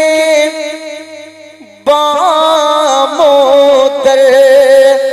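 A man singing a naat into a microphone in long, ornamented wordless phrases: a held note fades out over the first second or two, then a loud new phrase with wavering glides begins about two seconds in.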